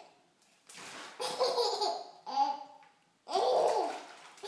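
Baby laughing in three bursts with short pauses between, the last one the longest and loudest.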